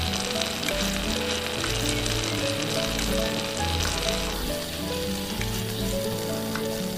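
Food frying in oil in a miniature pan: a steady sizzle with small crackles and pops.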